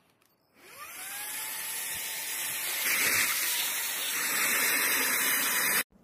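Xiaomi Mijia handheld cordless vacuum cleaner switching on: its motor whine rises in pitch and levels off under a loud rush of air. It gets louder about halfway through, then cuts off suddenly near the end.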